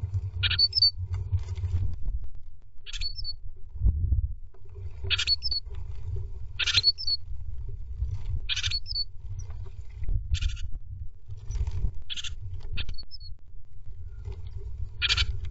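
Great tit at the nest with a newly hatched chick: short, high, scratchy chirps every second or two, some ending in a tiny upward squeak, over a low rumble of the bird shifting in the moss.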